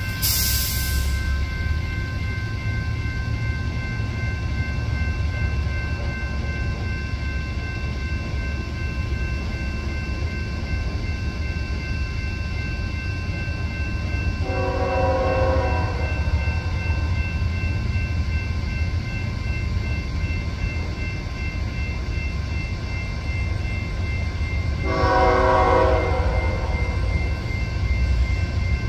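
Locomotive horn of an approaching BNSF double-stack freight train sounding for a grade crossing: one blast about halfway through and a longer one near the end, each a chord of several notes. Under it, a grade-crossing warning bell rings steadily and a low rumble runs throughout.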